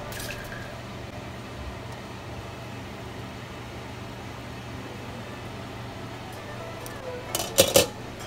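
A steady low hum, then near the end a quick cluster of sharp metal clinks as a metal spoon knocks against the stainless-steel soup pot.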